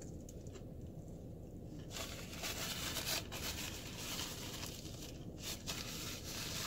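Paper napkin rustling and crinkling as it is handled and wiped across the mouth, starting about two seconds in and dense with little crackles.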